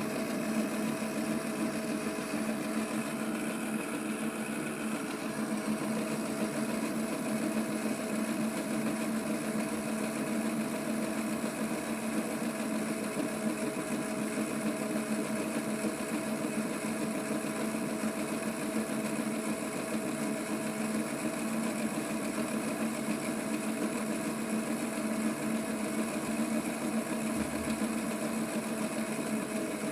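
Theo Klein toy Miele washing machine running a wash with water, its small motor turning the drum with a steady, even hum.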